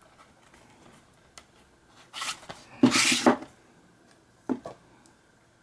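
A plastic DVD case being slid into its cardboard slipcover. A short rustle comes about two seconds in, then a louder scraping slide about three seconds in, and two light knocks near the end.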